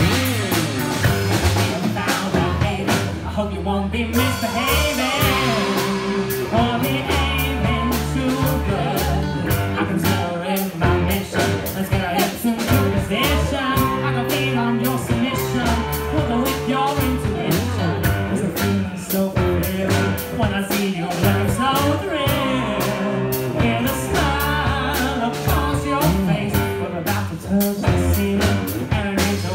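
A rock band playing live: a woman singing lead over electric guitar, electric bass, a Yamaha drum kit and a Casio Privia digital piano, with a steady beat throughout.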